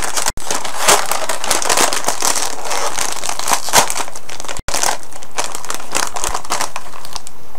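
Plastic potato-chip bag crinkling and crackling as it is opened and handled, with two split-second breaks in the sound.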